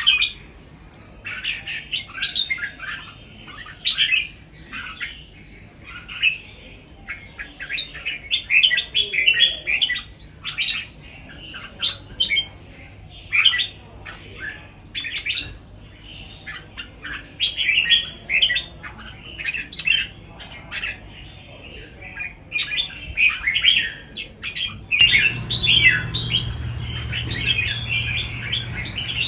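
Red-whiskered bulbul song: quick, chattering phrases repeated again and again with short pauses between them. About 25 seconds in, a low steady hum joins underneath.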